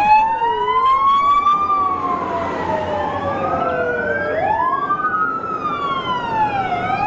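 Sirens of several airport fire trucks wailing at once, two or more overlapping tones slowly rising and falling out of step with each other, over the trucks' engine noise.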